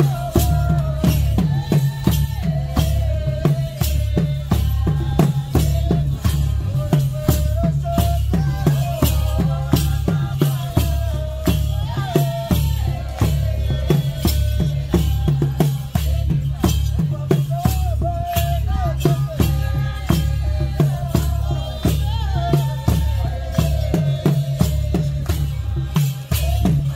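Rwandan traditional dance music: drums keeping a steady beat under a singing voice, with a rattling percussion sound on the beat.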